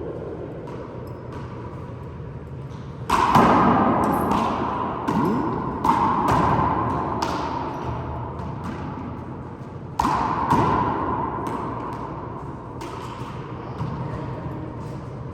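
Handball rally: a string of sharp smacks as the ball is struck by hand and hits the walls, each followed by an echoing ring. The hardest hits come about three seconds in and again about ten seconds in.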